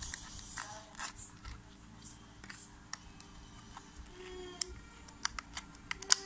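Clear plastic lure packaging crackling and clicking as fingers pick it open, in scattered sharp crackles with several close together near the end.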